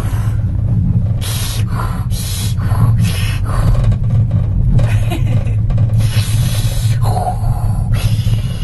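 A child chewing a crunchy snack close by, in short irregular bursts of crunching. Under it runs the steady low rumble of the moving gondola cabin.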